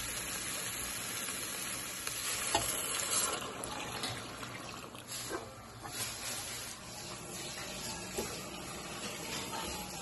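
Chicken stock poured into a hot stainless steel Dutch oven over fried onions and spices, sizzling as it hits the pan and then bubbling, with a few light knocks, most likely from the wooden spatula. The pour and sizzle are loudest in the first few seconds.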